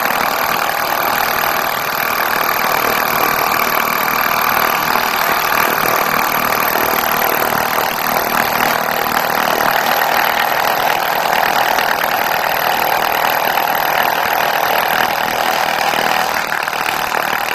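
Small hand-held tool pecking the face of a granite millstone in a fast, steady, continuous rattle, dressing the stone's grinding surface.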